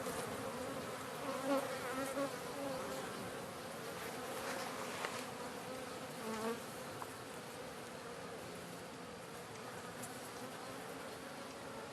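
Honey bees buzzing around an opened hive in a steady, wavering hum, with a few louder passes close by in the first half. The bees are agitated and defensive, swarming around the beekeeper after the comb was disturbed.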